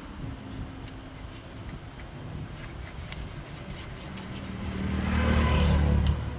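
A motor engine running with a low hum, swelling much louder over a couple of seconds near the end and then dropping away suddenly.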